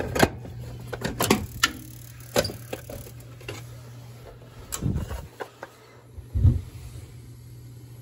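Clicks and knocks of a screwdriver working a mounting screw, then the plastic case of a Honeywell S8610M ignition module rattling and thumping as it is pulled loose and handled with its wires. A steady low hum runs underneath.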